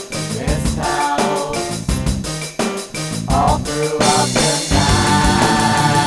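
Rock band music with drum kit and guitar, in a bouncy, ska-like rhythm that about four seconds in swells into a louder, denser, heavier section.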